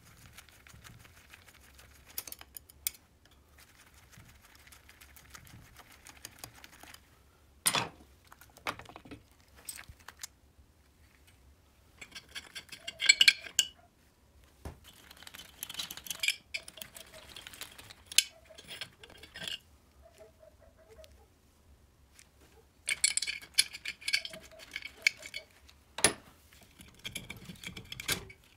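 Metal parts and hand tools clinking, tapping and scraping against a small moped engine during reassembly: a screwdriver on the ignition points and magneto coils, and the spark plug and cylinder head cover being handled and fitted. Loose clinks come in clusters, with a few single sharp knocks.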